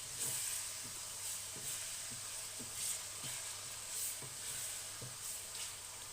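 Sliced chicken breast frying in hot oil in a frying pan with a steady sizzle. A wooden spoon stirring it gives irregular light knocks about once or twice a second.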